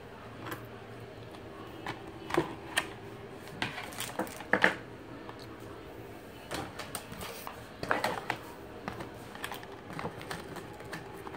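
Plastic food packaging crinkling and clicking in irregular bursts as a pack of sliced ham is handled and opened.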